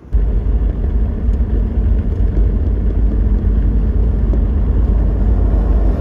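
Steady low rumble of a car driving on a snow-covered highway: tyre and road noise with engine drone.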